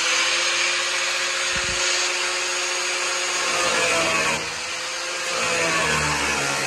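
Electric angle grinder with a thin cut-off wheel running with a steady whine, then cutting into the sheet-steel door skin about halfway through, its pitch dropping under load. It is cutting out the rust-rotted lower corner of the door to find good metal.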